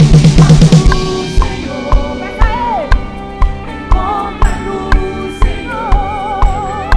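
Live gospel worship band: the drum kit plays a fast fill for about the first second, then settles into a steady beat with a kick drum about twice a second, under held keyboard chords and a singing voice with vibrato near the end.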